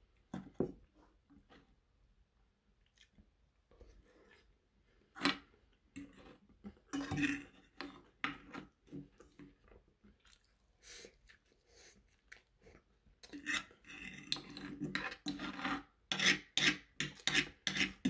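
Metal fork and spoon scraping and tapping on a nonstick frying pan while cutting steak and scooping rice, in scattered strokes that grow busier over the last few seconds.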